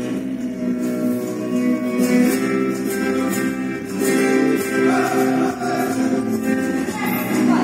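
Flamenco guitar music playing, with sharp percussive strikes repeating over the guitar.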